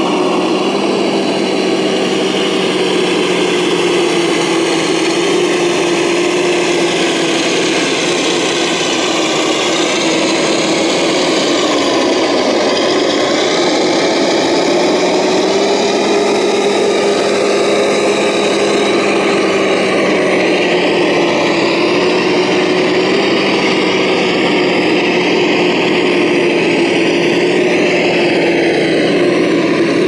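Radio-controlled 6x6 scale truck with a Scania-style cab running steadily as it crawls through mud and gravel. Its drive gives a continuous mechanical whine whose pitch rises and falls slightly with the throttle.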